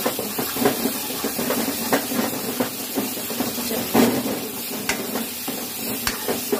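Tomato-onion masala with green peas sizzling and hissing in a kadhai, while a metal spatula stirs and scrapes through it with short knocks against the pan, the loudest about four seconds in.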